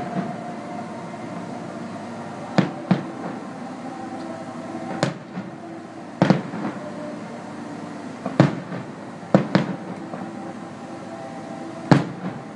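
Aerial fireworks shells bursting in the distance: about eight sharp bangs at irregular gaps of one to three seconds, some in quick pairs, over a steady background.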